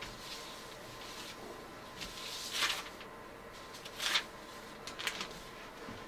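A rag wet with citrus paint stripper wiped by a gloved hand along a spray-painted wooden rifle stock lying on newspaper: soft rubbing and rustling swishes, the loudest about two and a half, four and five seconds in.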